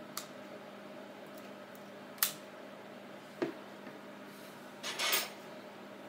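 Plastic prying picks clicking against the glass and metal edge of an iPod Touch 4th generation as its screen is pried open. A few sharp clicks come, the sharpest about two seconds in, then a short rattling cluster near the end, over a faint steady hum.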